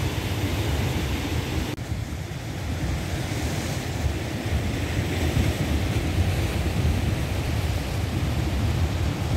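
Ocean surf washing and breaking against the rocks, with wind buffeting the phone's microphone as a steady low rumble.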